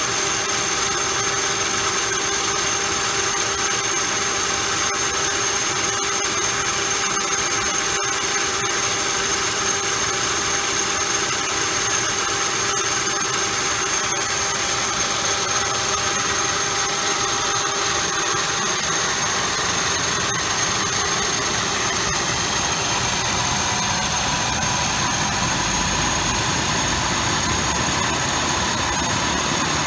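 Pratt & Whitney Canada PT6A-28 turboprop engines running on the ground with their cowlings off: a steady turbine whine over a rushing noise, with one tone rising slightly near the end. The steel-hub propellers are slowly coming out of feather after the engine change.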